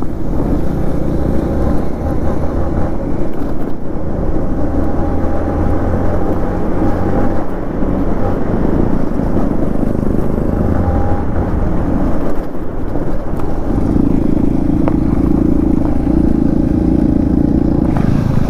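Yamaha motorcycle engine running steadily at road speed on a gravel road, heard from the rider's seat. The engine note turns stronger and steadier for the last few seconds.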